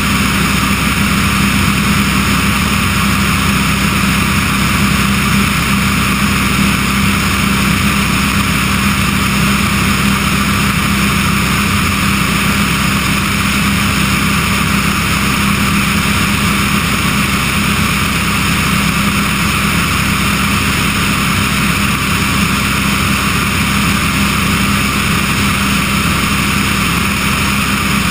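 Remos G-3/600 light-sport aircraft in cruise: its Rotax 912 engine and propeller drone steadily with a low hum, under a heavy rush of wind on the microphone.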